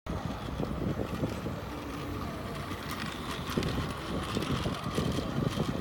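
Battery-powered Plarail Seibu 9000 series toy train running around a loop of plastic track, its small motor and gears giving a steady whir, with wind rumbling on the microphone.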